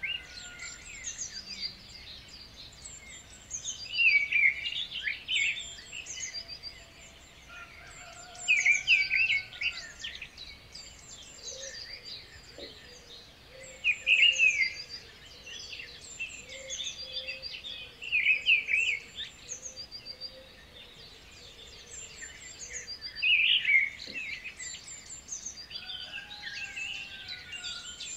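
Birdsong: short bursts of rapid chirping and twittering, returning about every four to five seconds, with fainter calls and a low background hiss between them.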